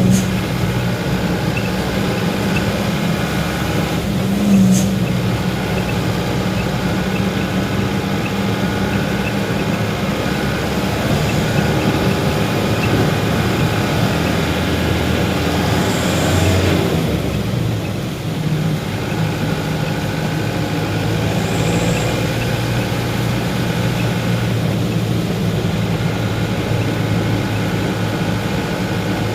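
Motor vehicle engine running steadily while driving, its pitch shifting briefly about two-thirds of the way through.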